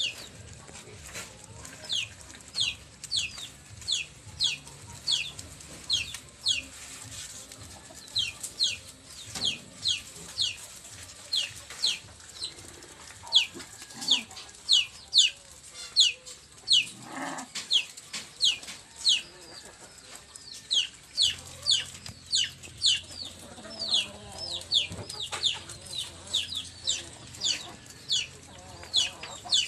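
Chickens peeping: short, high calls that fall in pitch, repeated about two a second.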